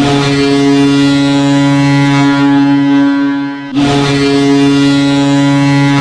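Ice hockey goal horn sounding a deep, steady, ship-like blast in two long pulls: the first lasts about three and a half seconds, and after a brief dip the second carries on to the end. It is a stand-in horn, not the club's actual arena horn, and signals a goal scored.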